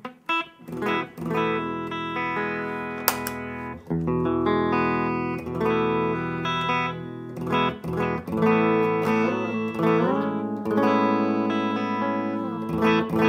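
Electric guitar playing notes and chords through a small Yamaha solid-state practice amp, with a sharp click about three seconds in as the Crucial Audio Tone-Nugget vacuum-tube booster pedal is switched on. The guitar keeps sounding through the engaged booster, which now passes signal after its repair.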